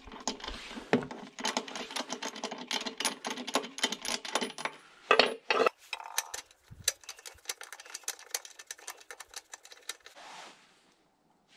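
Quick metallic clicks and rattles of a wrench and plug socket as a spark plug is unscrewed from a 123 cc lawn mower engine. The clicks come fastest and densest in the second half, then stop.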